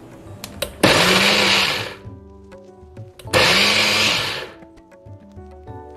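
Personal blender pulsed twice, each burst about a second long, the motor spinning up and winding down as it chops cooked sorrel (hibiscus) petals into a rough purée. A couple of small clicks come just before the first pulse.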